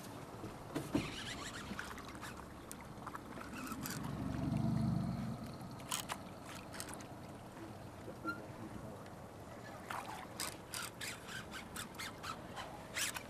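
A hooked Chinook salmon splashing at the surface beside a boat while the angler works a baitcasting reel, with scattered sharp clicks. A low rumble swells about four seconds in, and a quick run of clicks comes near the end.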